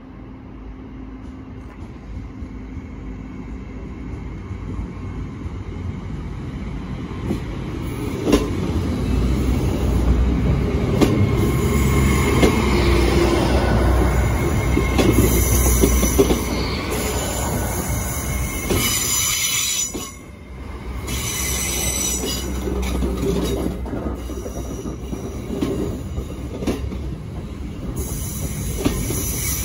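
Hitachi Intercity Express Train pulling into the station and slowing to a stop. Its low rumble grows louder over the first several seconds, then high-pitched squealing sets in as it brakes.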